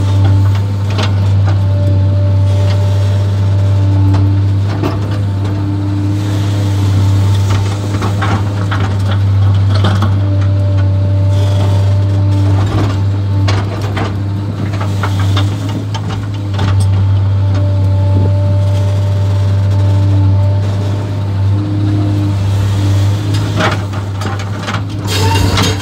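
JCB JS 235 HD tracked excavator heard from inside its cab: the diesel engine runs steadily under load, with a whine that comes and goes every few seconds as the boom and bucket move. Short clanks and rattles come throughout.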